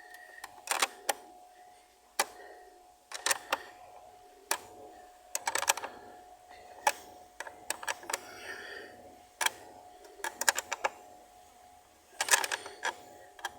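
Steel spanner clicking and clanking against a nut as it is spun down tight while a new car battery is fitted. The clicks are sharp and irregular, some in quick clusters of two or three.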